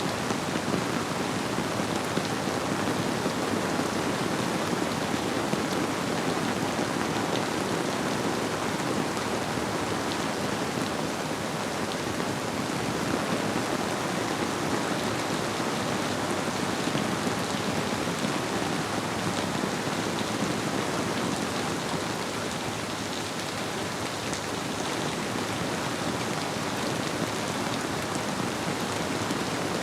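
Steady rain falling, with a flowing river mixed in, making an even, unbroken hiss with faint drop ticks.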